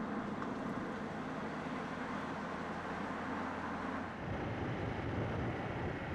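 BMW 6-Series Coupe driving along a road: a steady engine hum under tyre and wind noise, turning into a rougher low rumble about four seconds in.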